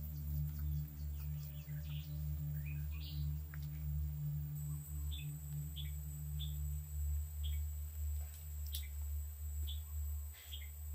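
Outdoor ambience of short, high bird chirps every second or so over a steady low hum; a thin, high steady tone comes in about halfway through.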